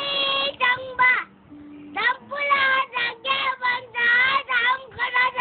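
A small boy singing a Nepali song unaccompanied in a high child's voice, in short held phrases with a brief pause between phrases just over a second in.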